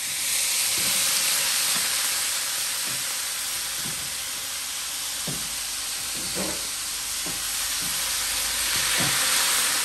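Pieces of smoked duck sizzling steadily in oil in a large aluminium pot over a wood fire, with faint, uneven knocks of stirring in the pot about once a second.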